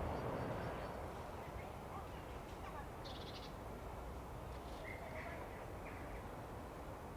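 Wild birds calling now and then in a snowy winter yard: a short rapid rattling call about three seconds in, then a few brief chirps. Under the calls runs a steady low rumble of distant background noise.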